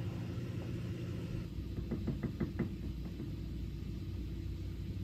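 Acorn woodpecker pecking at the body of a pickup truck: a quick run of about five sharp taps in just over half a second, over a steady low hum.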